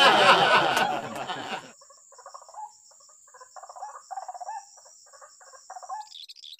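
Background music fades out over the first second and a half. Then a white-breasted waterhen calls, a run of short repeated notes for about four seconds, with a steady high tone above it. Higher-pitched chirping starts near the end.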